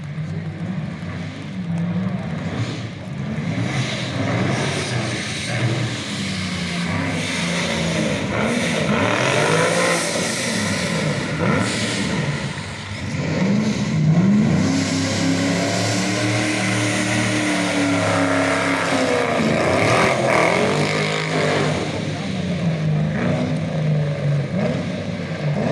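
Rally car engine revving hard through repeated rises and drops in pitch as it accelerates, shifts and lifts off during a show run.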